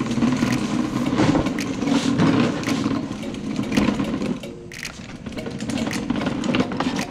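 Sun Joe dethatcher wheeled across a concrete floor: its wheels rolling with a steady rumble, with clattering and scraping from the machine's plastic body and handle. The rumble eases off a little about halfway through.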